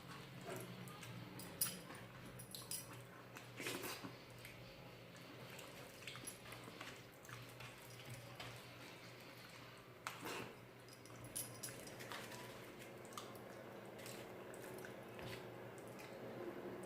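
Quiet eating sounds: chewing, with scattered wet clicks and squishes of a mouthful of rice and curry being eaten.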